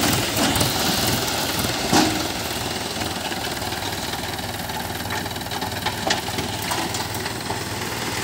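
Mahindra 475 DI tractor's diesel engine running steadily at low revs, with a sharp knock about two seconds in.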